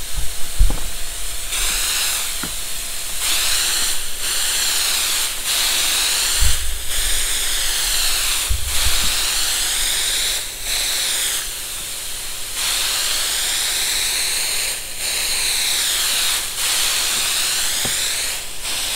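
Hopper-fed compressed-air spray gun spraying bedliner coating: a loud, steady hiss of air and spray that starts about a second and a half in and runs in long bursts, with brief breaks where the trigger is let off. The hiss sways in tone as the gun is swept across the roof.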